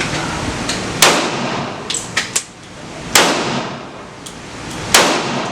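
5.7x28mm pistol being fired in slow, single shots, three loud cracks about two seconds apart, each with a ringing tail. Fainter sharp cracks fall between them.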